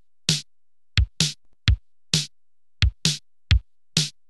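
Electronic music: a drum beat of short, sharp hits, about two a second, with no melody over it.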